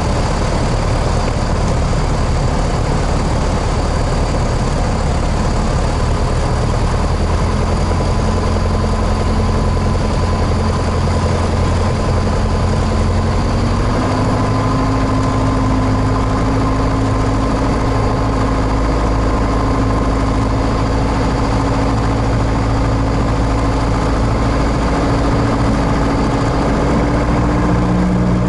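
Single-engine propeller aircraft's engine and propeller heard from inside the cockpit on final approach: a steady, loud drone. About halfway through, the engine note steps up in pitch, then creeps slightly higher.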